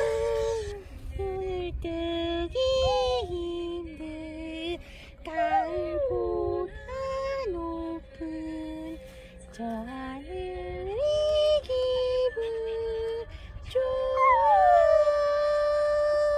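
A Shih Tzu howling along to a song, in long held notes that step up and down in pitch like a tune, with short breaks between them. Near the end one howl slides down from high and is held steady.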